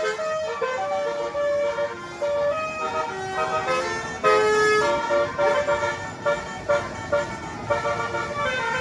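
Bus telolet horn: a bus's set of musical horns playing a quick tune of short notes that step up and down in pitch, over the rumble of the bus.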